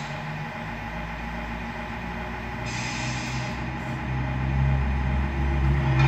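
The sound module (Tamiya MFC-01) of a 1/14 RC Scania R620 playing a diesel truck engine through its small speaker: a steady idle that grows louder from about four seconds in as the truck pulls away, with a short hiss about three seconds in.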